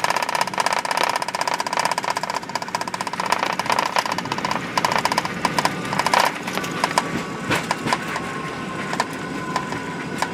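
Inside the cabin of a Fokker 70 taxiing: its turbofan engines whine steadily at low power, with the pitch stepping slightly higher about two-thirds of the way through. Over it runs a dense, rapid rattling and clicking of the cabin as the aircraft rolls along the taxiway.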